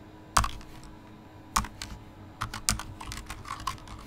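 Computer keyboard being typed on: a single sharp keystroke about half a second in, another about a second later, then a quick run of keystrokes.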